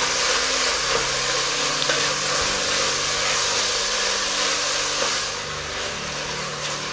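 Minced pork sizzling as it browns in hot oil in a steel pot while being stirred with a wooden spatula; the sizzle eases a little about five seconds in.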